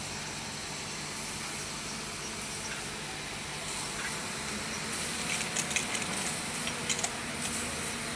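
Steady machinery noise: a low hum under a hiss, with a few sharp clicks and taps from about five seconds in.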